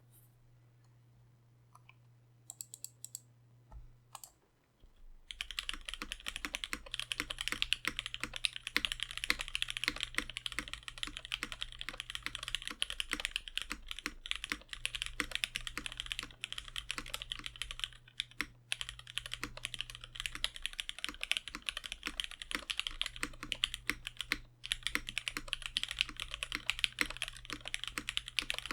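Mechanical keyboard with lubed and filmed Cherry MX Black linear switches on an aluminium plate, being typed on steadily. A few single key presses come first, then fast continuous typing starts about five seconds in.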